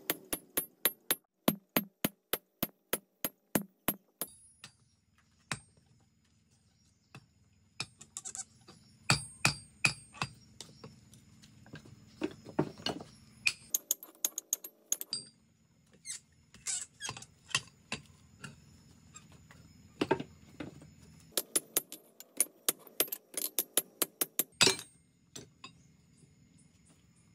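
Hammer blows on a punch and drift in red-hot steel on an anvil, punching the eye of an axe head. A fast even run of about three to four sharp metallic strikes a second comes first, then shorter bursts of blows with pauses, the last one near the end.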